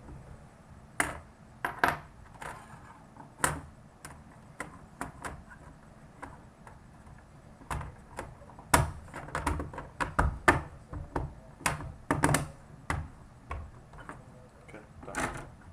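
Irregular sharp clicks and knocks of hard plastic as the Xbox 360 Slim's casing and its pried-off panels are handled, with a busier run of clicks about halfway through.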